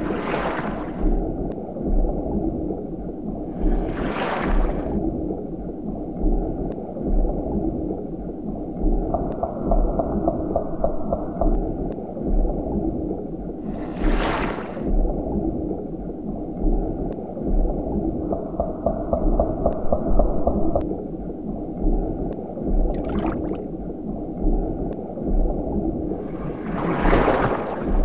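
Dark, rumbling underwater-style soundtrack ambience with a low thud about once a second. A rushing swell rises and fades roughly every ten seconds, and a wavering mid-pitched tone comes in twice.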